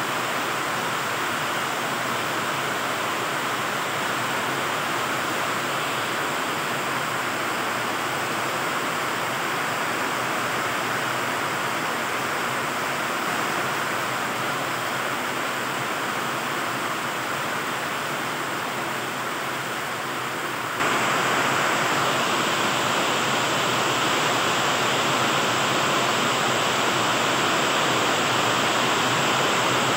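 Heavy rain pouring down steadily. It suddenly gets louder about two-thirds of the way through.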